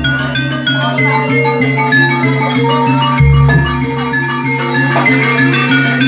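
Live jaranan gamelan music: quick metallophone notes in a repeating melody over a steady low tone, with a deep low stroke about three seconds in.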